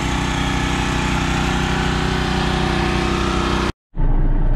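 An engine running steadily. Near the end there is a sudden cut to the Volvo 4400 wheel loader's diesel engine running, heard from inside the cab, with a heavier, lower hum.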